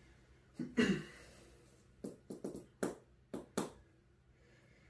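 A short, dull sound about a second in, then a quick string of about six sharp taps and knocks between two and four seconds in, in a small room.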